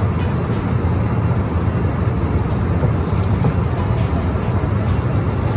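Steady low rumble of a vehicle's interior while underway, an even drone with no breaks or changes.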